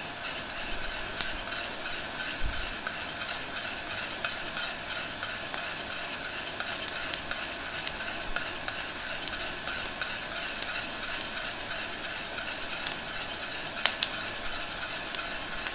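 A heat gun blowing steadily into a metal pot of roasting coffee beans while a spoon stirs and scrapes through them, with a few scattered sharp clicks. The beans are between cracks: first crack has finished and second crack is about to begin.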